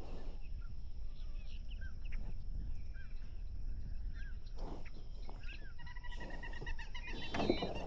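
Birds calling: short chirps repeated every half second or so, then from about six seconds in a rapid run of nasal, evenly spaced notes, over a low steady rumble.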